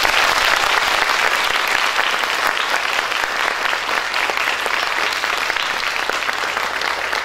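Audience applauding: loud, dense, steady clapping from many hands at once.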